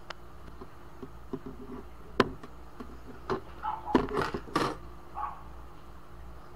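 Handling noise as a laptop motherboard is set down on a workbench and an oscilloscope probe is placed on it: a few sharp knocks and clatters, the loudest about two seconds in and again around four seconds in, over a steady low hum.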